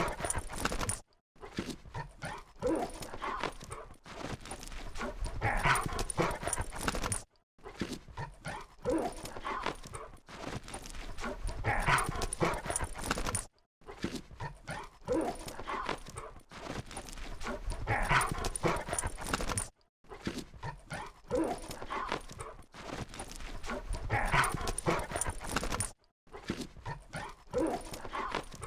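Labrador dogs playing, making whimpers and yips. The same few-second recording repeats about every six seconds, with a brief silent gap between repeats.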